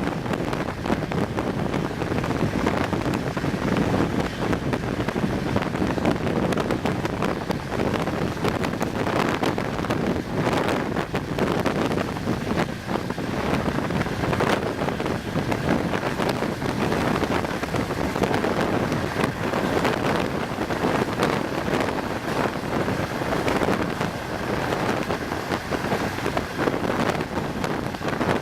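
Wind buffeting the camera's microphone aboard a moving passenger train, a steady rushing noise over the train's running sound.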